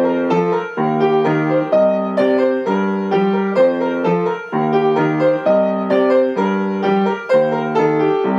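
Yamaha upright piano being played: a repeating pattern of broken chords, new notes struck about twice a second and ringing on over one another.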